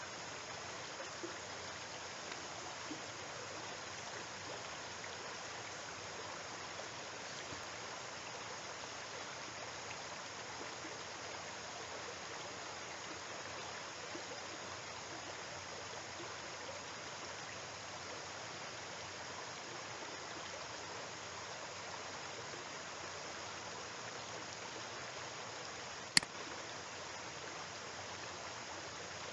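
Steady, even hiss of recording background noise, with one sharp click near the end: a mouse click opening a linked web page.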